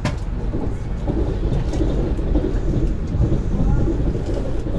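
Steady low rumble of a Lastochka ES1 electric train running at speed, heard from inside the carriage, with a sharp click at the very start.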